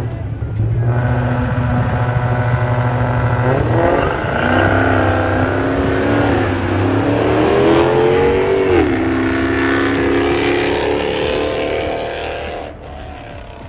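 Drag-racing car engines at full throttle: a steady high engine note, then the pitch climbs twice, falls suddenly about nine seconds in, and holds steady before fading near the end.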